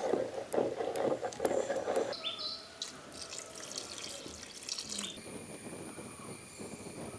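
Thick curry with colocasia leaf knots stirred with a wooden ladle in a metal pot, wet squelching and scraping for about two seconds. Then a thin ground-masala paste is poured in with a splashing pour, and a few bird chirps are heard. After about five seconds there are steady high-pitched outdoor tones.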